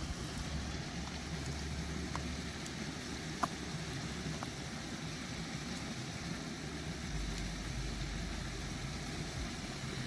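Wind rumbling on the microphone over a steady rushing hiss, the rumble stronger in the last few seconds, with a couple of faint short chirps about two and three and a half seconds in.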